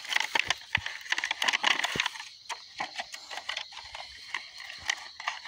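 Knife cutting down the side of a thin plastic bottle, the plastic crackling and snapping in quick, irregular clicks.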